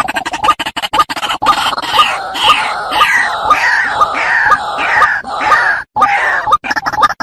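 White-breasted waterhen calling: a fast run of harsh clicking grunts, with a series of loud, falling croaks about two a second in the middle that breaks off briefly near six seconds.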